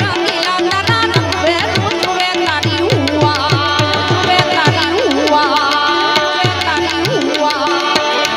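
Gujarati folk music: a fast, steady tabla or dholak rhythm under a gliding melody line.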